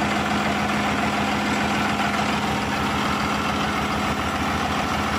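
Cummins six-cylinder turbo diesel inboard engine in a speedboat, idling steadily without revving.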